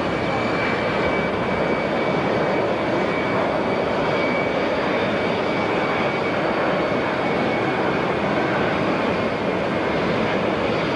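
Jet airliner engines at taxi power heard across an airfield: a steady rushing noise with a thin, steady high whine running through it.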